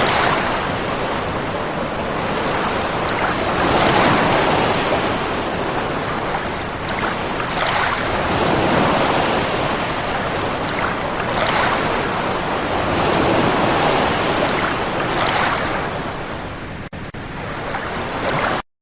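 Continuous rushing noise that swells and fades every few seconds, then cuts off abruptly near the end.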